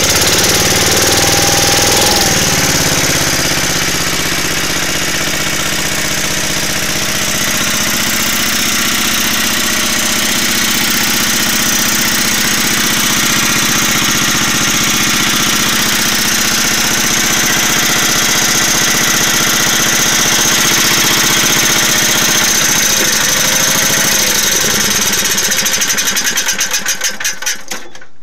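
Briggs & Stratton 16 hp single-cylinder, cast-iron-bore engine driving a 4 kW generator, running steadily at its governed 1800 rpm. Near the end it shuts down, its beats slowing and spreading apart as it winds to a stop.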